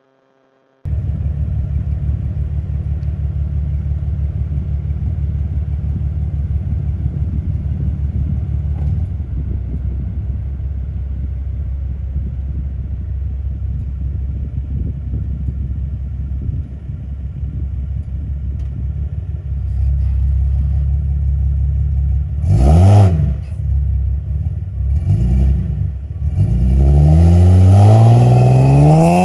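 BMW E92 328i's straight-six through a catless exhaust, running steadily at low revs. About two-thirds through it gives a short, sharp rev blip and then a couple of smaller ones, and in the last few seconds the revs climb steeply as it accelerates.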